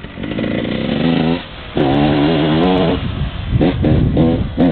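Kawasaki KX125 single-cylinder two-stroke motocross engine revving hard, its note wavering with the throttle and dropping away briefly about a second and a half in before picking up again.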